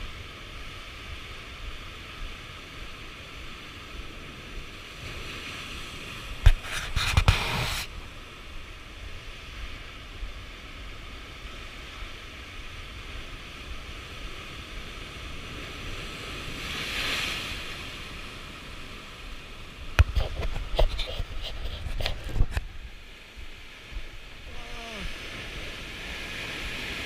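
Ocean surf breaking into a narrow rocky gully, with white water rushing steadily over the rocks. Two waves crash loudly, about a quarter of the way in and again after about two-thirds, with a softer surge between them.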